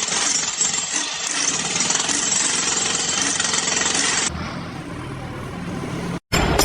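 Jackhammer pounding steadily for about four seconds, then cut off abruptly to a quieter steady machine hum, with a brief moment of silence near the end.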